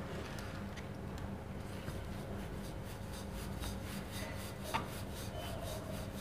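Wooden rolling pin rolling out naan dough on a marble rolling board: faint, evenly repeated rubbing strokes, with a light knock near the end.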